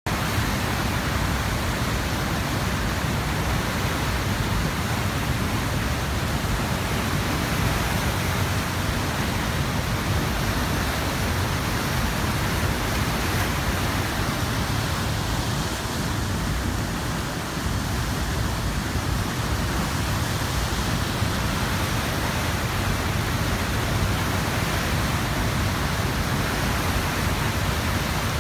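Waterfall swollen by heavy rain, a high volume of floodwater pouring over the crest and churning below in a steady, unbroken rush.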